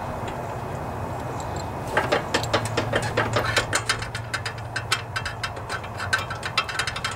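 Ratchet wrench clicking rapidly as a spark plug is run in on a Kohler Courage twin-cylinder engine, starting about two seconds in.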